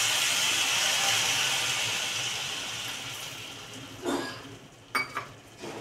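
Water sprinkled onto chopped beans and onion frying in a hot stainless-steel kadai, hissing and sizzling as it turns to steam, the hiss dying away over about four seconds. A few short clinks follow near the end.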